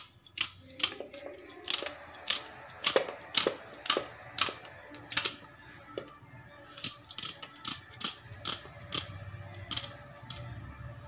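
Kitchen knife slicing through a red onion held in the hand, a crisp crunch with each cut at about two cuts a second, with a short pause around the middle.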